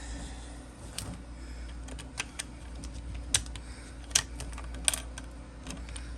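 Irregular sharp clicks and taps of hard 3D-printed plastic parts being pushed into place in a printed tool box, over a steady low hum.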